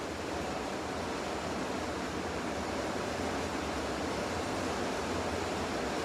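Steady, even rushing background noise with no distinct sounds in it.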